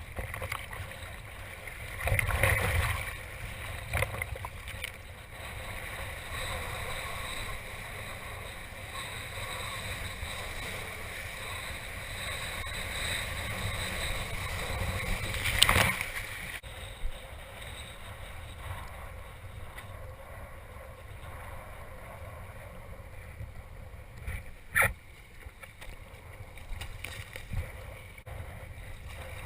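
Wind buffeting the microphone and water rushing and splashing while kitesurfing, with a few short sharp splashes or knocks, the loudest about halfway through and another near the end.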